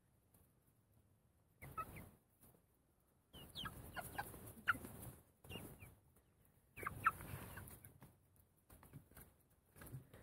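Mechelen (Malines) chickens clucking and peeping softly in several short bursts, with bursts of rustling noise.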